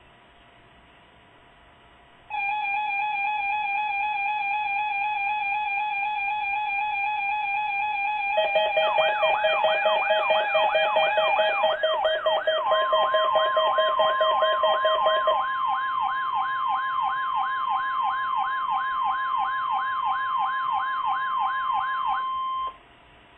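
Electronic emergency alert tones in a broadcast. Steady, slightly warbling tones start suddenly about two seconds in and are joined a few seconds later by a fast siren-like sweep, about three rises and falls a second, with a steady high tone added over it. All of it cuts off suddenly near the end, leaving hiss.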